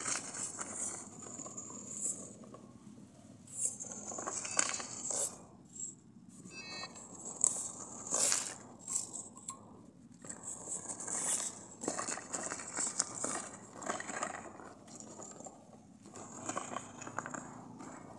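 Electric drive motors of a six-wheeled rover robot whining in spells as it is driven against a stack of firewood logs, with the wheels scraping and crunching on the bark and ground.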